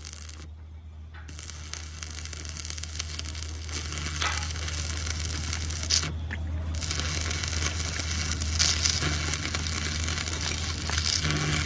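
Stick (shielded metal arc) welding on a steel truck chassis rail: the arc's steady crackling sizzle, which starts about a second in, breaks off briefly about six seconds in and strikes again. A steady low hum runs underneath.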